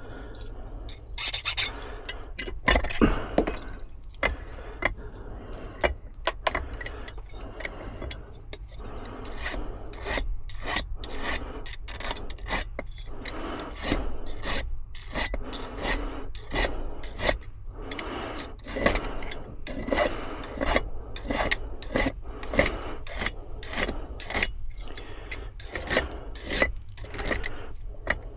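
A hand file rasping back and forth on a bullet ward key blank, cutting the wards by hand in a steady rhythm of strokes, about one to two a second.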